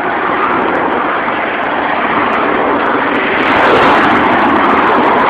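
Steady rush of traffic on a busy highway, slowly growing louder.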